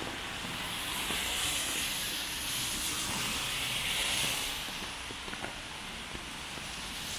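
Rain hissing on a wet street, the hiss swelling louder for a few seconds in the middle and dropping back about two-thirds of the way through.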